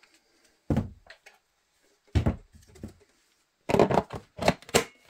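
Knocks and thuds of a Unilite MTB5300 cordless LED work light being picked up and handled: five sharp knocks, the last three close together near the end.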